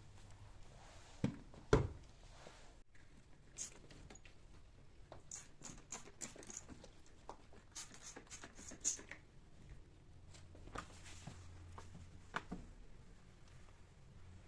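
Household objects being handled in a quiet room: two dull knocks close together about a second and a half in, then scattered light clicks and taps.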